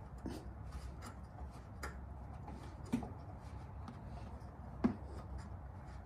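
Faint rubbing and small clicks as fingers turn the radiator's drain petcock by hand to let the coolant out, with a few slightly sharper clicks about two, three and five seconds in.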